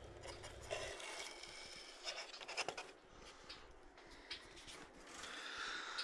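Faint rustling and scratching as the nesting grass of a finch nest is handled, with a few soft clicks.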